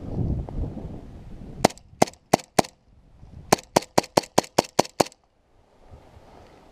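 Gas-powered airsoft 1911 pistol firing: four shots, then after a short pause a quicker string of eight.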